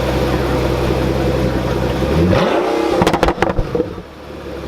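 Pagani Huayra's twin-turbo V12 idling, then blipped: the revs shoot up about two seconds in, followed by a quick string of sharp exhaust pops and crackles as the throttle closes, before it drops back toward idle.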